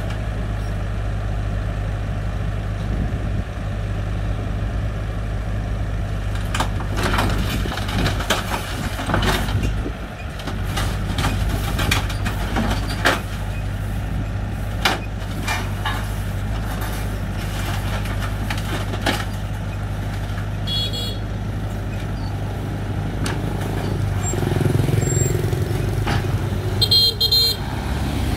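Doosan DX55 mini excavator's diesel engine running steadily as it drives up steel ramps onto a flatbed truck, with repeated clanks and knocks of its tracks on the ramps and bed. A vehicle horn toots briefly twice, and near the end a van's engine rumbles close by.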